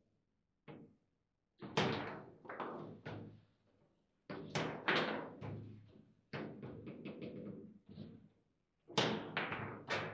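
Foosball table in play: sharp knocks and clacks of the ball being struck by the players on the rods and bouncing off the table walls, in bursts of several quick hits with short quiet gaps between them. One of the bursts ends with the ball going into a goal.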